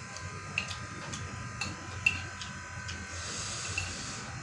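Someone eating at a table: several light, sharp clicks of a spoon or mouth in the first couple of seconds, then a soft breathy hiss about three seconds in, over a steady electrical buzz.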